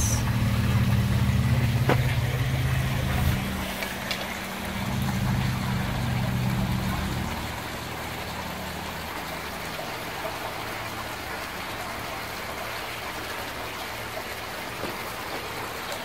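A steady low mechanical hum, engine-like, that drops away about halfway through, leaving a fainter even hiss.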